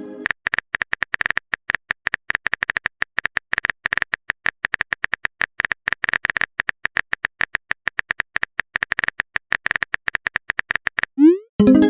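Rapid, irregular clicks of a phone-keyboard typing sound effect. Near the end comes a short rising whoosh and a pitched chime, the message-sent sound.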